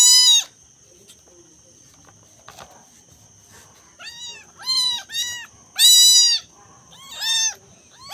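Young kittens mewing: a high, thin meow at the start, then after a pause about five more in quick succession from about four seconds in, the longest and loudest near six seconds in.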